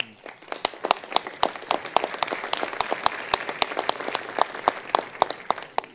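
Applause from a seated audience of delegates, many hands clapping at once. It dies away near the end.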